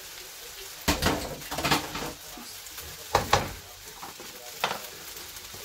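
A handful of sharp clanks and knocks of kitchen utensils against cookware, two of them close together a little past three seconds, over faint sizzling from vegetables and noodles frying in a wok.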